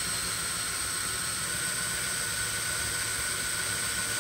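Handheld power drill running steadily, its bit boring a hole down through a small piece of wood: an even hiss with a faint high whine.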